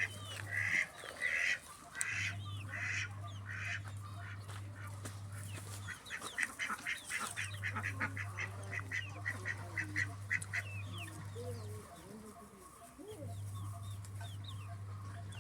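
A flock of poultry calling, with many short, rapid calls coming in runs, busiest in the first half and thinner after about 11 seconds. A steady low hum comes and goes in long stretches underneath.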